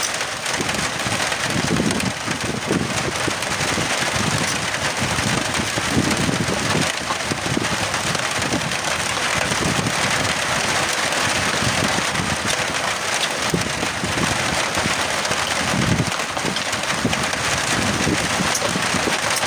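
Steady rain falling, an even hiss with an uneven low rumble underneath.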